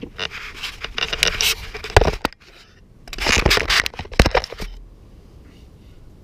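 Seat of a KTM 690 Enduro R being worked off with its release lever: two spells of scraping and rustling, each with a sharp knock, about two seconds in and just after four seconds.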